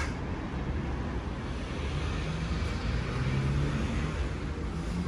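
Street traffic noise: a steady road hum, with a motor vehicle passing and swelling to its loudest a little past halfway.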